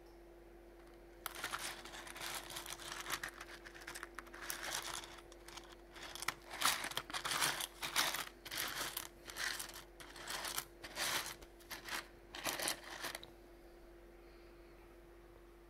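Plastic bag holding a parcel of rough opal being handled: irregular crinkling and rustling with sharp little clicks, in bursts for about twelve seconds before it stops. A steady low hum runs underneath.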